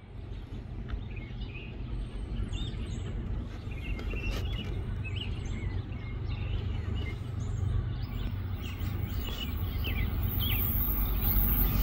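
Songbirds chirping over a low rumble that grows steadily louder: a freight train approaching out of sight.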